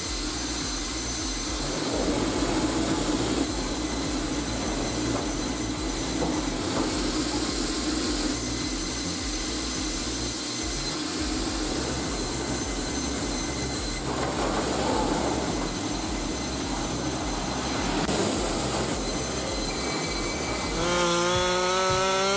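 Automated twin band saw line in a sawmill running: a steady, dense machinery noise with a high, thin whine that comes and goes every few seconds as logs are carried and cut.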